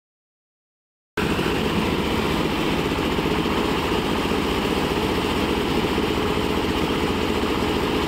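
The 10 HP diesel engine of a concrete mixer running steadily, coming in abruptly about a second in.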